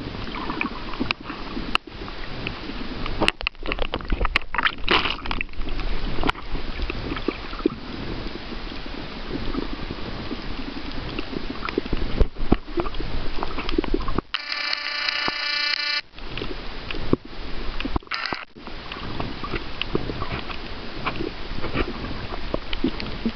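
Underwater noise picked up by a camera held below the surface: a steady rushing hiss with scattered clicks and crackles. About fourteen seconds in, a buzzing tone cuts in for roughly two seconds.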